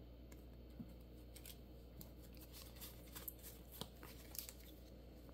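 Faint, scattered clicks and light rustles of Pokémon trading cards being handled and shuffled through in the hands, over quiet room tone; the clicks come more often in the second half.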